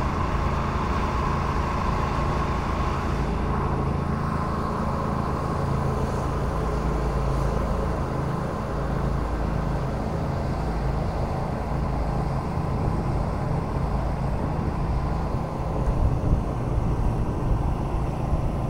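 Engine of a trailer-mounted pressure cleaner running steadily with a low drone, a bit noisy; a higher whine fades out after a few seconds.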